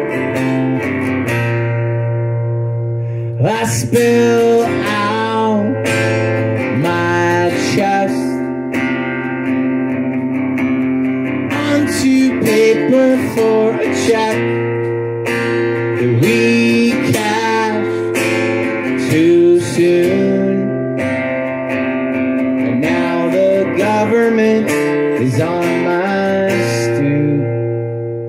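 Solo acoustic guitar being strummed steadily, with a man singing over it at a microphone.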